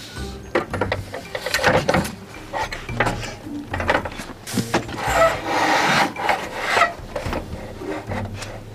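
Solar panel on aluminium mounting feet scraping and knocking against a van's ribbed metal roof as it is pushed into position: irregular clicks and rubs, with a longer scrape about five seconds in.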